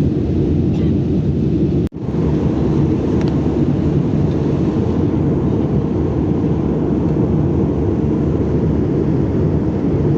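Airliner cabin noise in flight: the steady, deep rumble of engines and rushing air heard from a passenger seat, cutting out for an instant about two seconds in.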